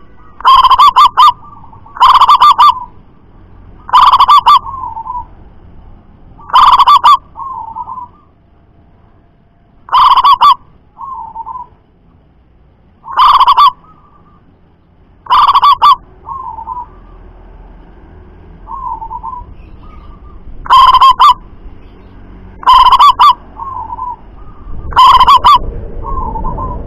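Caged zebra dove (perkutut) cooing: ten loud calls, about two to three seconds apart, each followed by a softer short coo. The loud calls are loud enough to reach the top of the recording's range.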